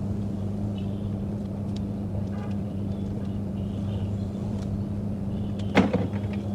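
Pen drawing circles on folded paper: faint scratching strokes over a steady low electrical hum, with one sharp tap or click near the end.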